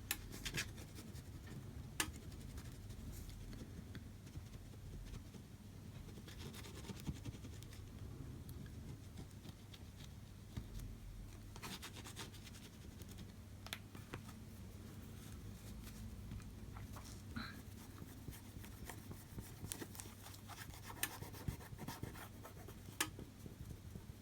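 Faint, intermittent scratching and light clicks of old OCA adhesive being rubbed and scraped off an iPhone LCD's surface, over a steady low hum.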